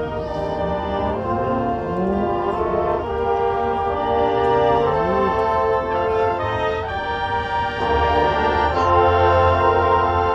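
Marching band brass section playing sustained, changing chords, with low brass sliding upward twice in the first half and the full band swelling louder in the second half.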